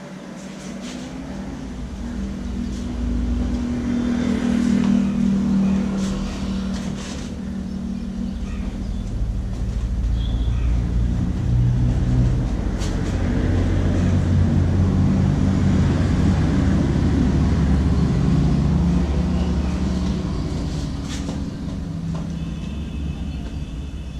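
Motor vehicle engines passing close by on the street, swelling and fading in loudness with a low, shifting engine pitch.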